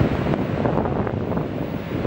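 Wind rumbling on the microphone over the steady wash of ocean surf.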